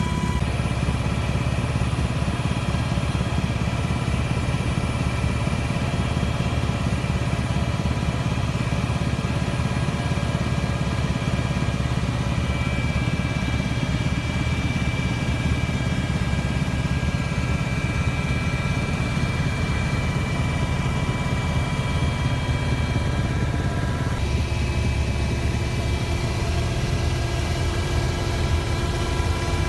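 Aircraft engine drone heard from inside the cabin: a steady low rumble with several steady whining tones above it, a few of which shift in pitch about three-quarters of the way through.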